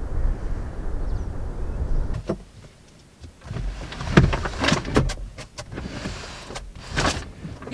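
Low wind rumble on the microphone for about two seconds, then after a short lull a run of knocks, clicks and rattles as gear is moved about inside a van.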